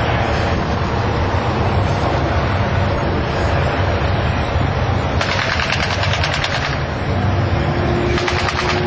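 Steady low rumble, then about five seconds in a rapid rattle of simulated machine-gun fire from airshow pyrotechnics, lasting about a second and a half, with a second short burst near the end. A steady engine drone comes in under it about seven seconds in.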